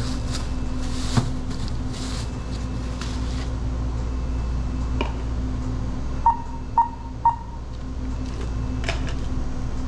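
Steady low hum of a store checkout, with a plastic bag rustling as items are bagged in the first few seconds. Then come three short electronic beeps about half a second apart from the checkout equipment.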